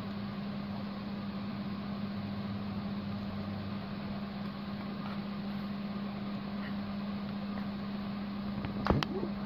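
A steady low mechanical hum with a hiss over it, with no change in pitch; near the end, a few sharp clicks of a metal spoon against a glass bowl as the mixture is stirred.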